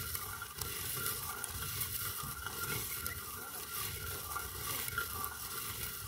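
Rotary stone hand mill (quern) grinding dry beans into flour: the upper millstone turns on the lower one with a steady gritty scraping and small clicks.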